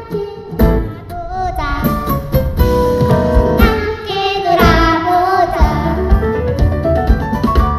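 Two young girls singing a Korean children's song as a duet over instrumental accompaniment with a steady beat. Around the middle they hold a long note with vibrato.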